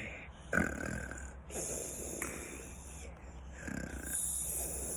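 Snoring in sleep: about three slow, noisy breaths a second or so apart, each with a hiss.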